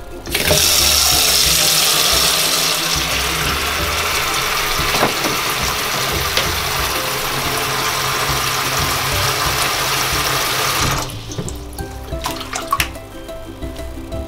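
Kitchen tap running a stream of water into a plastic basin in the sink, a steady rushing splash that starts just after the beginning and shuts off about three seconds before the end. A few light knocks and splashes follow.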